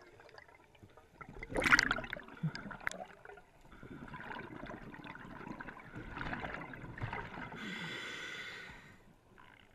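Scuba diver breathing through a regulator underwater: a loud rush of bubbles about two seconds in, a few seconds of bubbling, then a steadier hiss near the end.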